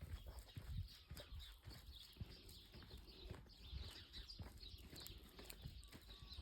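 Quiet, irregular footsteps and handling thuds of a person walking outdoors with the camera, with faint bird chirps above them.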